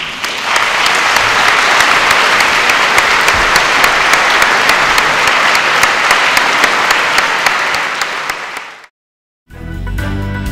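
A large audience applauding steadily, fading out near the end. After a moment of silence, music with a beat starts.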